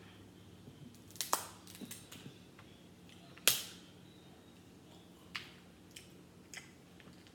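Crab leg shells cracking and snapping as they are broken apart by hand: several sharp cracks, the loudest about three and a half seconds in.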